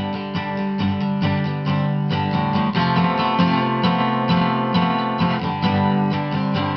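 Background music: acoustic guitar strummed and picked in a steady rhythm, several notes a second.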